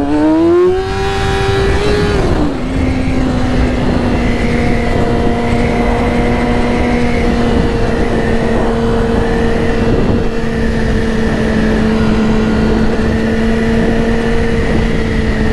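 Yamaha R6 600 cc inline-four sport-bike engine pulling hard with its note climbing, then dropping as it shifts up about two seconds in. It then holds a steady cruising note over constant wind rush.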